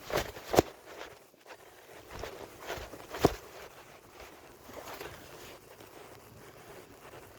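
Footsteps of a person walking outdoors, with a few sharp knocks: two at the start and a louder one just over three seconds in, then fainter rustling steps that die away.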